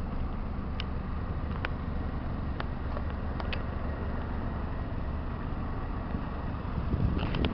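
Suzuki Cappuccino's small three-cylinder engine idling steadily, with a few light clicks scattered through and a louder rustle of handling near the end.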